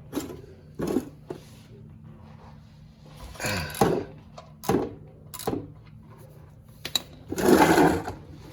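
Ratchet and socket working a tight oil-pan drain plug loose: a handful of short metal clicks and knocks, with a longer, louder scrape near the end.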